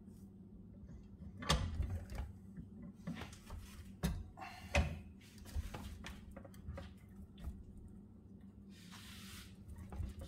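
A few separate knocks and clunks, the clearest about a second and a half, four and five seconds in, from metal parts and tools being handled at a workbench, over a low steady hum.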